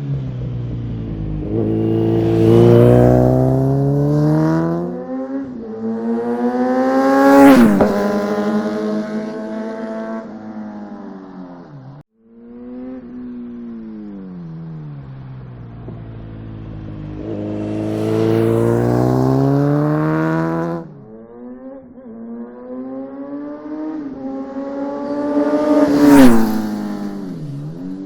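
Kawasaki Z900's inline-four running through an open Akrapovic full exhaust with no dB killers. It revs up through the gears and goes past twice; the loudest moments come with a sharp drop in pitch as it passes.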